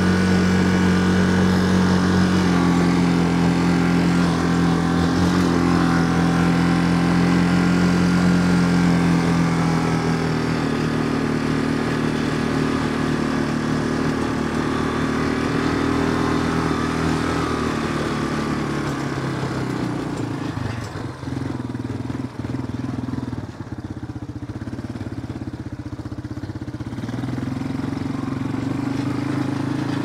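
A small vehicle's engine running as it drives across a field, carrying the microphone; the note holds steady, eases down past the middle and picks up again near the end.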